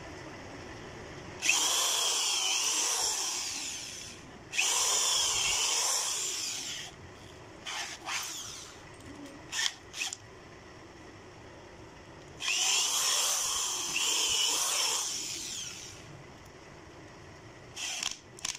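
Corded electric drill boring holes in MDF board, the motor whining in several runs of two to three seconds each, with a few short trigger bursts between them.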